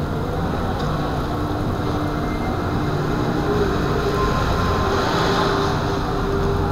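Steady rumble of riding over a wet street, tyre and wind noise picked up at ground level by a camera on the foot platform of a Solowheel self-balancing electric unicycle, with a few faint, slowly drifting tones over it.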